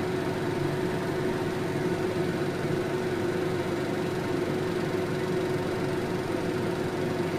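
Steady mechanical hum with one constant low tone, unchanging throughout.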